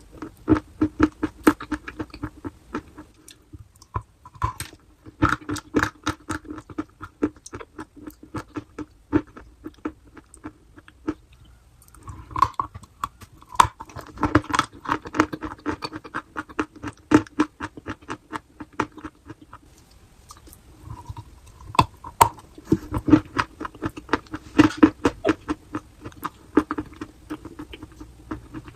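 Close-miked chewing of chalk: rapid runs of sharp crunches, coming in spells of several seconds with short pauses between bites.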